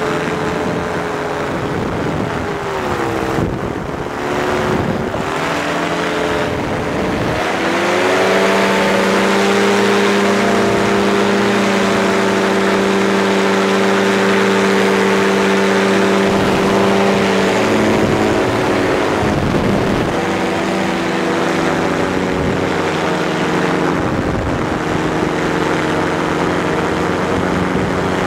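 Powered parachute's engine and propeller running. The pitch dips about three seconds in, then rises to a steady high-power note about eight seconds in as the craft takes off and climbs. The power is eased back near eighteen seconds, over constant wind rush.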